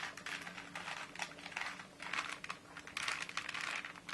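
Rubik's Cube being twisted quickly by hand: its plastic layers clicking and rattling in quick bursts of turns.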